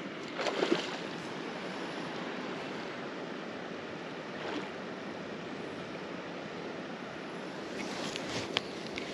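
Steady rushing ambience of running creek water. There is a brief handling rustle about half a second in, and a few sharp clicks from the spinning reel being handled near the end.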